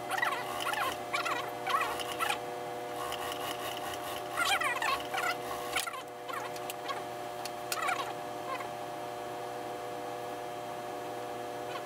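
Industrial sewing machine stitching in three short bursts, its speed rising and falling within each run, over a steady hum.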